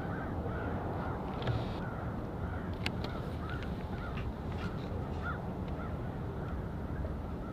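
Steady low rumble of a distant Airbus A310 airliner's jet engines passing overhead on approach, with crows cawing several times.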